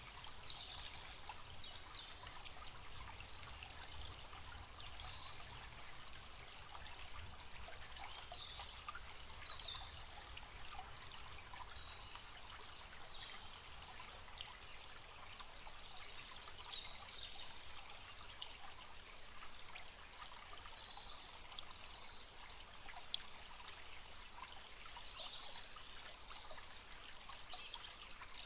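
Forest stream trickling and splashing steadily, with short, high bird chirps coming and going over it.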